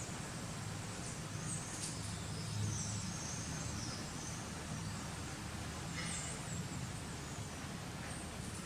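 Outdoor background of steady hiss and low hum, with a few short, high chirps scattered through it.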